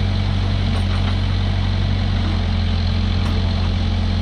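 Backhoe loader's diesel engine idling steadily, a low even rumble.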